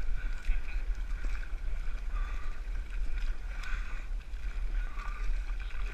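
Muddy water sloshing and splashing as a runner crawls and wades through a shallow mud pit, picked up by a head-mounted GoPro Hero3 under a steady low rumble.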